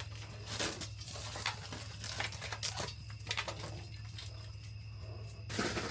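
Scattered light crackles and taps of crumbling wall material and debris being handled, over a steady low hum.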